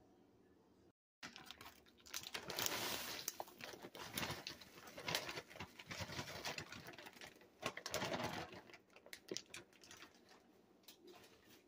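Frozen chopped spinach pouring out of its plastic bag into a pot of vegetables: the bag crinkling and a dense patter of falling pieces. It starts about a second in and comes in several waves as the bag is shaken out, tapering off near the end.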